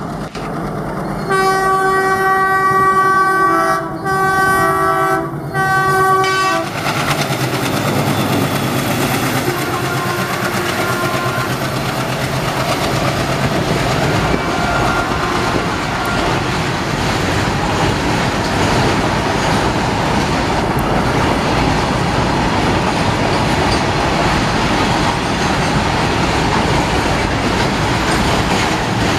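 Diesel locomotive's multi-tone air horn sounded in three blasts, one long followed by two shorter, as the freight train approaches. Then the steady rumble and wheel clatter of a long string of open freight wagons rolling past.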